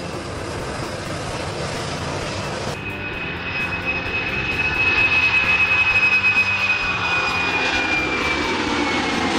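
Airbus A310 jet engines running at takeoff power as the airliner lifts off, a steady roar. Partway through, the sound changes abruptly to another takeoff, with a high steady whine over the roar that grows louder midway and dips slightly in pitch near the end.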